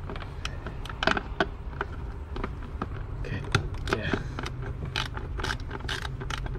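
Hand socket ratchet with a deep socket clicking as a bolt is worked loose, a few scattered clicks at first, then quicker runs of clicks from about halfway through.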